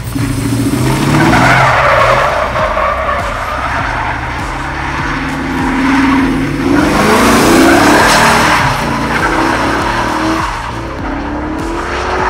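LS-swapped Mustang's 5.3-litre V8 revving up and down as the car drifts, its tires sliding on gravel. The revs and tire noise swell twice: about two seconds in, and again about seven to eight seconds in.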